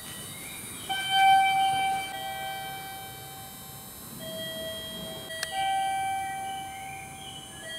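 A slow electronic melody of long held notes, each lasting a second or more, with short sliding tones higher up and a sharp click about five seconds in.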